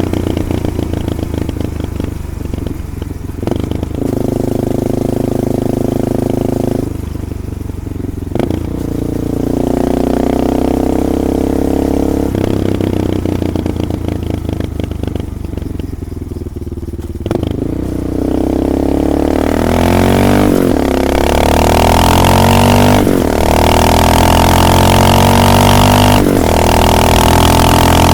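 Honda XR650L's single-cylinder four-stroke engine through a DG slip-on exhaust while riding, pulling up through the gears. The pitch rises under acceleration and drops at each of several shifts, with a rumble to the exhaust note.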